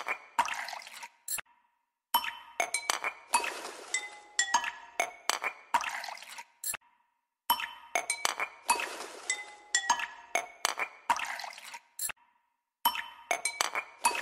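Background music: a looped track of glassy clinks and chime-like tones over a light hiss. The phrase repeats about every five seconds and stops dead for a moment twice.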